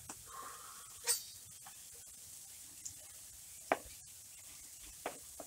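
Knife slicing tomatoes on a plastic cutting board: a handful of light, scattered knocks as the blade comes down on the board, the sharpest about one second and three and a half seconds in.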